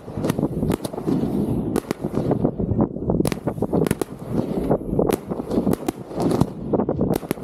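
Fireworks display heard from right at the firing site: shells launching and bursting, a rapid, irregular string of sharp bangs over a continuous dense noise.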